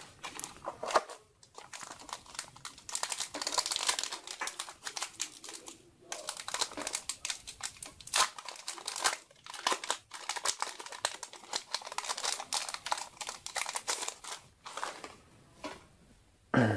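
Foil Yu-Gi-Oh! booster pack wrapper crinkling as it is handled and torn open, in several spells of dense crackle with short pauses between.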